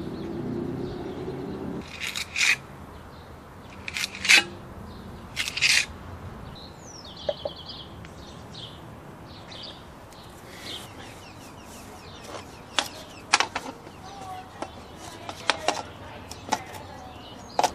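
Irregular sharp knocks and clicks, a dozen or so with quiet gaps between them, the loudest a little over four seconds in, along with a few faint bird chirps. A low steady hum stops about two seconds in.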